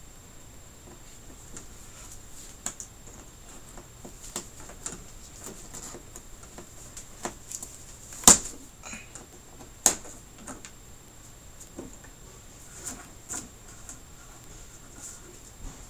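Scattered light clicks and crinkles as the plastic diffuser sheet of an LCD TV backlight is worked loose from its frame clips by hand, with two sharp snaps about eight and ten seconds in.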